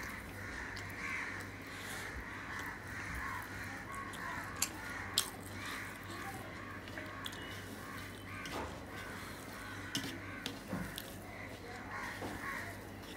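Fingers mixing rice with mashed bottle gourd and chilli on a steel plate: soft squishing with a few sharp clicks against the metal, over a low steady hum. Animal calls sound in the background.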